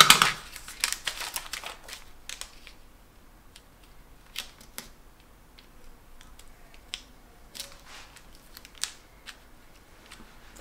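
Paper and cardstock being handled and pressed down on a cutting mat: light rustles and scattered small taps and clicks, with a louder scraping rustle at the very start.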